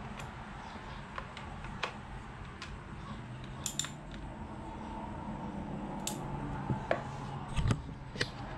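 Hand ratchet clicking in short, separate metallic clicks as the timing-belt cover bolts on a Honda D16 engine are snugged down by hand. There is a dull bump near the end.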